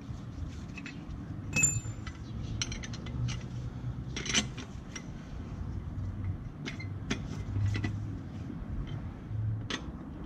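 Irregular metallic clicks and clinks of wheel bolts and a wrench being worked on a Volkswagen Passat's alloy wheel; one sharp clink about one and a half seconds in rings briefly. A low steady hum runs underneath.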